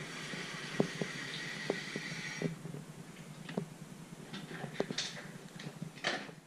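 Voltbike Yukon 750 e-bike's rear hub-motor wheel spinning down freely with no power applied: a steady hiss that stops about two and a half seconds in, with scattered ticks throughout and a louder short rustle near the end.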